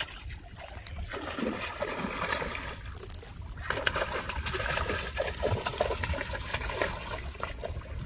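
A hooked rohu thrashing and splashing at the water's surface as it is reeled in, in two spells of rapid splashing, the second from about four seconds in and louder.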